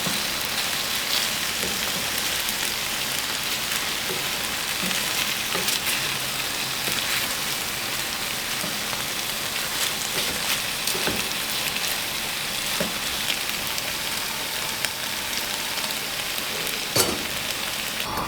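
Food sizzling and crackling in a hot frying pan, a steady hiss with scattered small pops, and a sharper knock near the end.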